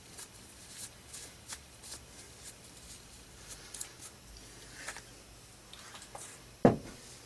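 Light rustling and scraping as hands clean chips off a metal lathe, with one sharp knock near the end.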